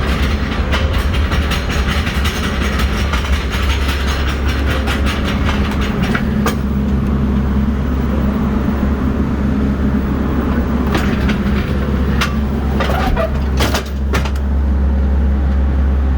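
Steady low drone of an idling engine, with a fast run of rattling clicks over the first six seconds and a few sharp knocks near the end.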